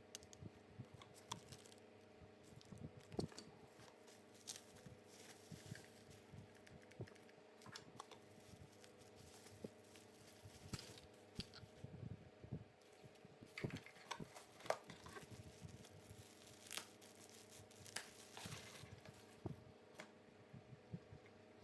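Packaging being handled and opened by hand: faint, scattered rustling, crinkling and tearing with small knocks, over a faint steady hum.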